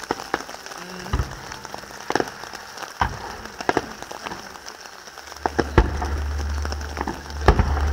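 Distant aerial fireworks crackling, with scattered sharp pops from glittering crackle effects. A low steady rumble joins about five seconds in.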